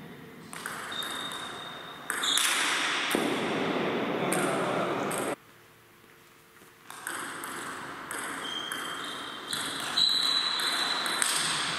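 Table tennis rally: the ball clicks off the rackets and bounces on the table in quick exchanges, in a reverberant sports hall.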